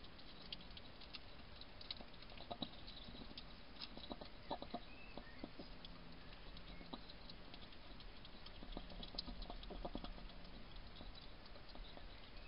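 European hedgehog crunching dry pellet food from a bowl: quiet, irregular clicky crunches in short runs, under a steady faint hiss.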